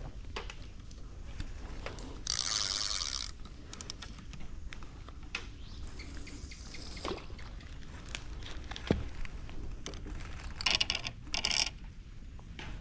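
Fishing line being pulled in by hand across a concrete bank: small clicks and scrapes, with two rustling bursts of about a second each, one about two seconds in and one near the end.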